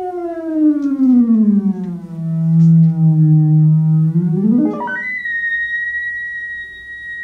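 Synthesized electronic tone whose pitch is driven by a single control parameter. It glides slowly downward and holds low, then sweeps up sharply about four and a half seconds in and holds a high, steady pitch.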